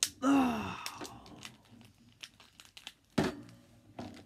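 Plastic wrestling action figures being handled and knocked against a toy wrestling ring: a scatter of clicks and taps, with a louder thump a little past three seconds in. It opens with a short groan-like vocal sound whose pitch falls.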